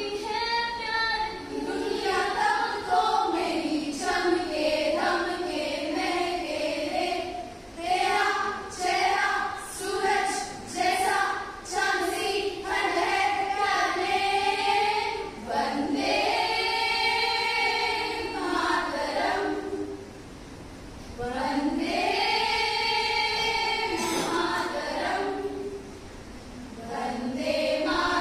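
A group of women singing a patriotic song together in a choir, with long held notes and two short breaks between phrases, the second near the end.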